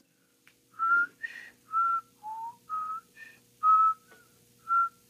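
A person whistling a short tune: about nine short, clear notes that hop up and down in pitch.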